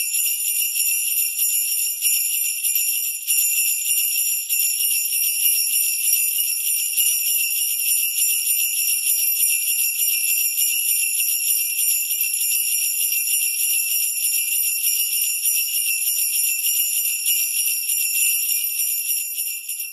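Sleigh bells shaken in a continuous rapid jingle, sounding as the alarm for a countdown timer that has reached zero; the jingling fades out at the very end.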